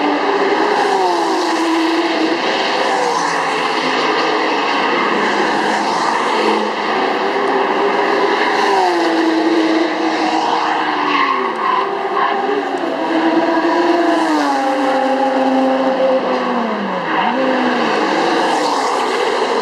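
Sports car engine running hard on a race track, its pitch climbing and then sliding down several times as the car accelerates and slows for corners.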